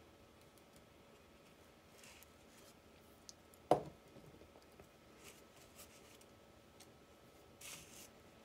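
Quiet handling of a starter solenoid and its cover on a bench: one sharp knock a little under halfway, a few light clicks, and a short scraping rub near the end.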